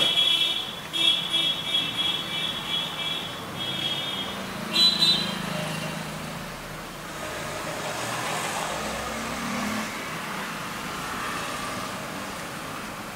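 Road traffic going by, with a run of short high-pitched toots repeated over the first five seconds, then a steady traffic hum.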